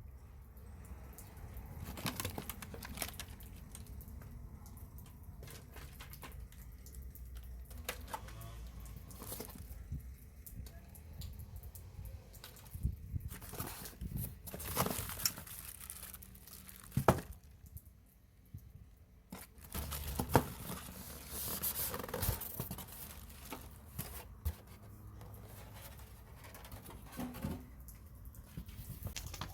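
Packaging being handled: irregular tearing and crinkling with scattered sharp knocks and rustles, as a boxed window air conditioner is unpacked.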